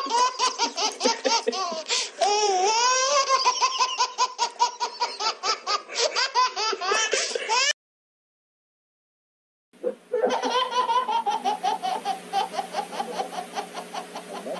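High-pitched laughing in quick, rapid pulses, in two stretches: one that stops abruptly about eight seconds in, and after a two-second silence a second one whose pitch slowly falls.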